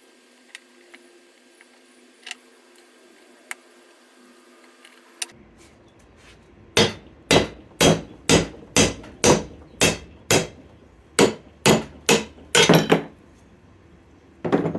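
Hammer blows on a ball joint in a Honda Civic steering knuckle, knocking the joint out: about fifteen sharp metal-on-metal strikes at roughly two a second, starting about halfway in, after a few faint clicks.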